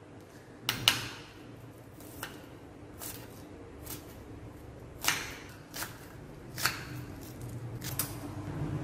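Kitchen knife slicing scallions on a glass cutting board: a series of sharp clicks as the blade strikes the glass, irregularly spaced a second or so apart.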